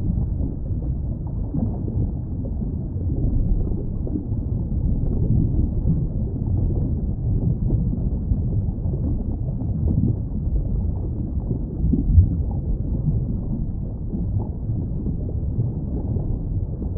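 Underwater ambience: a steady, deep, muffled rumble with the high end gone, as heard with the ears below the surface. One brief louder surge comes about twelve seconds in.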